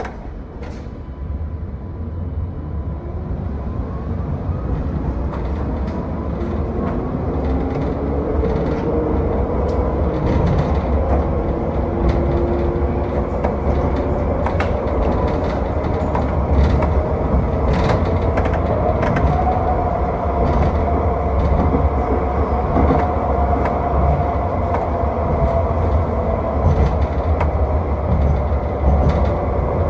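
Alstom Citadis X05 light rail tram running and picking up speed. Its electric traction motors give a whine that slowly rises in pitch and levels off about two-thirds of the way through, over a steady low rumble of wheels on rail with scattered clicks.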